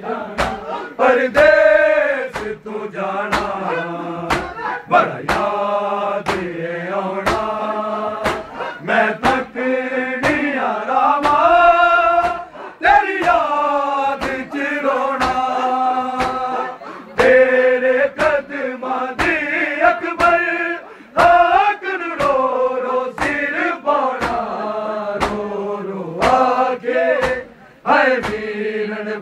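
Men chanting a Punjabi noha, a Shia mourning lament, over a steady, evenly spaced beat of open-hand chest-beating (matam) slaps from the crowd.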